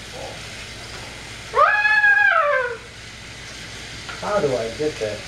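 A long high hoot like a train whistle about a second and a half in, rising, held, then sliding down, over the steady running noise of battery-powered TrackMaster toy engines on plastic track. Short voice-like sounds near the end.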